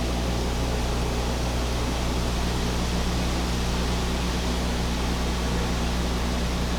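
A laundry machine running: a steady low hum over an even hiss.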